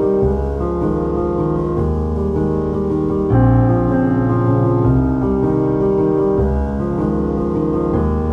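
Background music led by piano over a low bass, its chords changing every second or two at a steady level.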